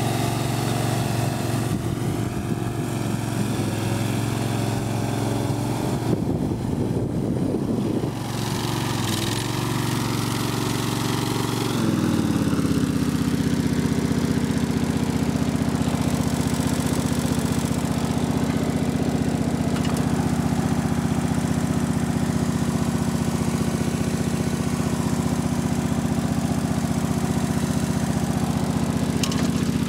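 Vanguard 18 hp V-twin engine of a Toro Greensmaster 3100 riding greens mower running at higher speed, then dropping in pitch about twelve seconds in and settling into a steady idle.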